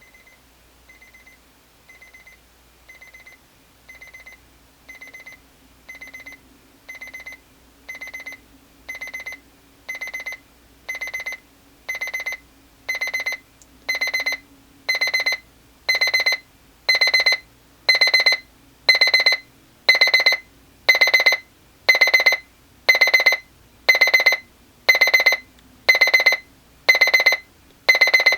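Brookstone TimeSmart projection alarm clock's alarm going off: short clusters of rapid, high-pitched beeps about once a second, growing steadily louder from faint to loud.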